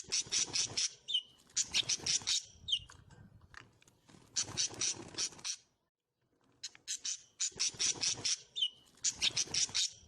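A small songbird singing in phrases of rapid, high trills and chips, several bursts in a row, with a pause of about a second near the middle.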